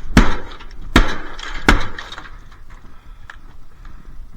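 Three hard blows in quick succession from a hammer or axe striking a dishwasher, knocking pieces of its casing off, followed by lighter clattering.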